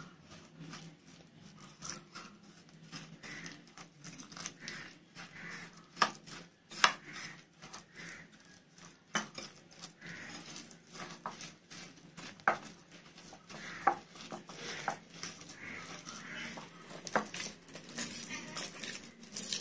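Steel spoon scraping and clinking against a bowl while stirring ground biscuit crumbs and milk into a thick batter, with sharp clicks scattered irregularly, the loudest about six to seven seconds in.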